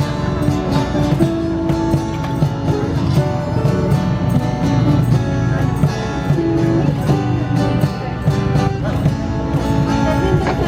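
Live band music with guitar and a steady beat.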